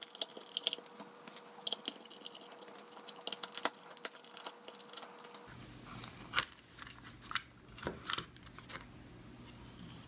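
Irregular small clicks, scrapes and crackles as a precision screwdriver backs the screws out of a Yaesu MH-48 hand microphone's plastic case, then the plastic back cover is handled and pulled open.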